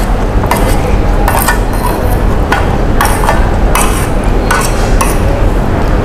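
Cutlery clinking and scraping against a plate of curry rice, a dozen or so short clinks at an uneven pace as the food is eaten, over a steady low background rumble.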